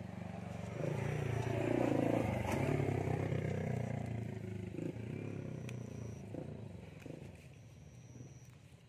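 A motor vehicle passing by: its engine grows louder over the first two seconds, then fades away over the next several seconds.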